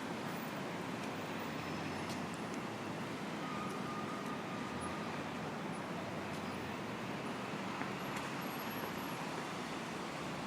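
City street traffic ambience: a steady wash of passing cars, buses and trucks, with a faint brief high squeal about three and a half seconds in.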